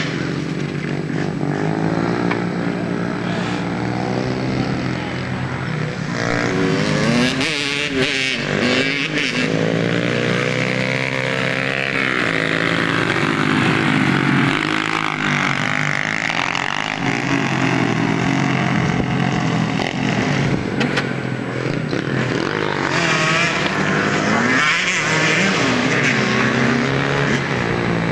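Several small dirt bike engines running around a motocross track, their pitch rising and falling as the riders open and close the throttle.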